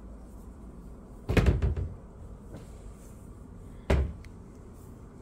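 A closet door being shut with a clattering bang about a second in, followed by one more sharp knock a couple of seconds later.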